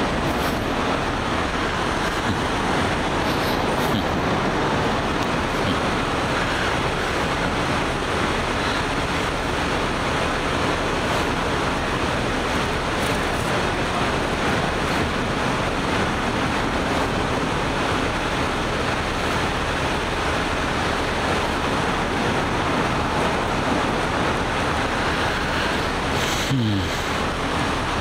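Steady loud roar of road traffic noise under a highway overpass, even and unbroken. Near the end a short falling tone with a click cuts through it.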